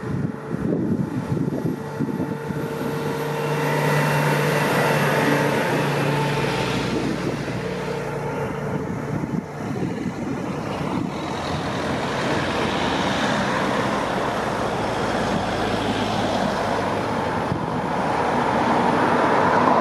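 Road traffic passing on a country road: the engine and tyre noise of a fire and rescue vehicle, a motorcycle and cars, growing louder near the end as a car comes close.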